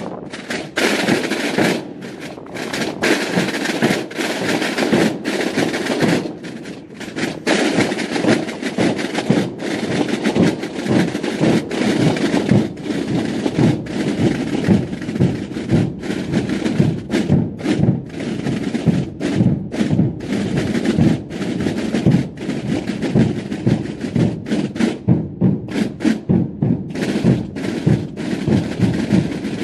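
Massed Holy Week processional drums, tambores and bass bombos, beaten together in rapid, dense strokes, with a few brief breaks between passages.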